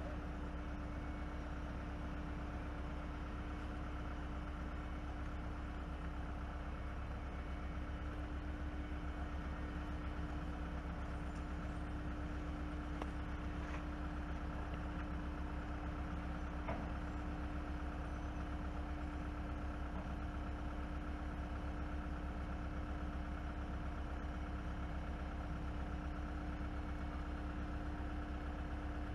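Diesel engines of asphalt paving machinery running steadily with a continuous low drone and a steady hum.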